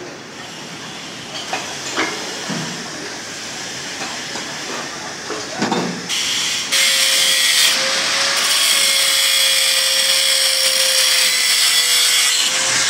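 A few light knocks, then about seven seconds in a steel-cutting saw starts grinding through steel: a loud, steady hiss with a single steady whine held under it.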